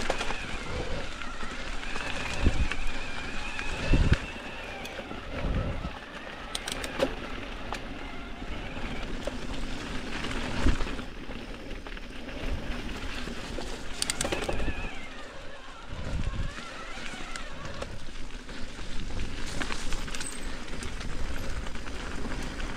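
Mountain bike being ridden on a dirt trail: tyres running over dirt and rock, with rattles and knocks from the bike and several louder thumps.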